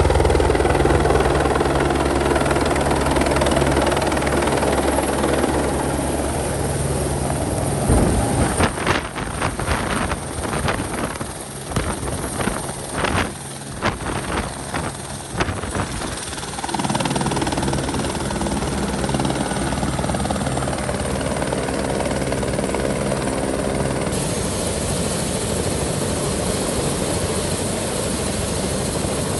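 Fishtail Air helicopter landing and then running on the ground with its rotor turning: a steady loud turbine and rotor sound. From about a third of the way in to just past the middle it turns choppy and gusty, with sudden drops and spikes, before it steadies again.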